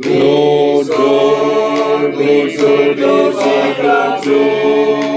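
Men's choir singing unaccompanied in several parts, holding long chords that change about once a second.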